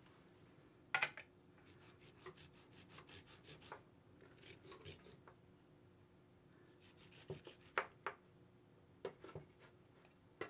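Serrated knife sawing and scraping at a tough deer hoof and its hairy hide, a faint run of short rasping strokes with a sharper one about a second in and a quick cluster near the end.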